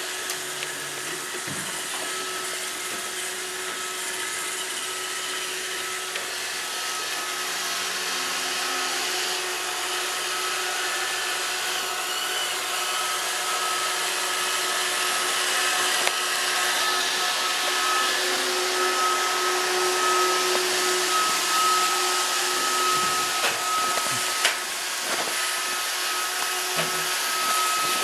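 Roomba robot vacuum running: a steady whir with a thin high whine and a lower hum, gradually getting louder, with a few light knocks in the last few seconds.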